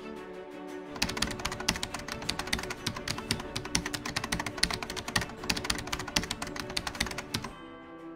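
Rapid keyboard typing clicks, a sound effect that starts about a second in and stops abruptly near the end, over steady background music.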